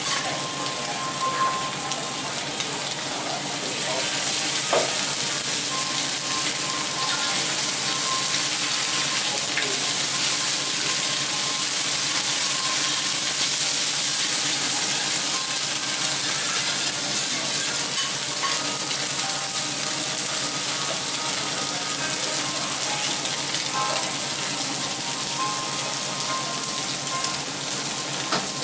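Food frying on a teppanyaki iron griddle: a steady sizzle, with a few small clicks.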